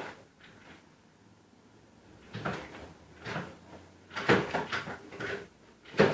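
Dirt bike being kick-started, about five short mechanical clatters roughly a second apart with no engine catching: the bike will not start.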